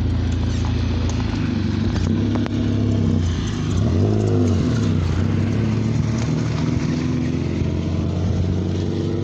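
Motor vehicle engine running close by, a steady hum whose pitch bends up and down for a second or two about four seconds in.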